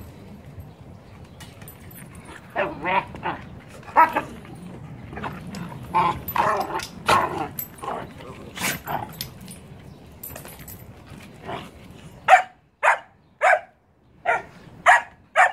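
A puppy and adult dogs barking and yipping as they tussle, the big dogs correcting the puppy: short calls in scattered bursts, then a run of about five sharp barks in the last few seconds.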